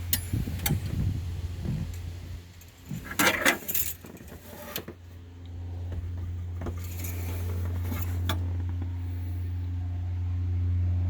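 Metallic clinks and rattles of an engine oil dipstick being pulled out and pushed back into its tube while the oil level is checked, with a dense clatter about three seconds in and a few single clicks later, over a steady low hum. The level reads low, short of the full mark.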